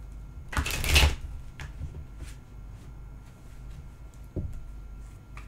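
A deck of tarot cards being shuffled by hand: a brisk rustling burst of cards sliding against each other about a second in, then a few soft clicks of cards being tapped and squared.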